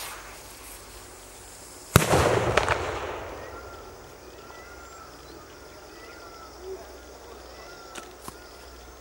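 A single loud firecracker bang about two seconds in, crackling and echoing away over about a second and a half.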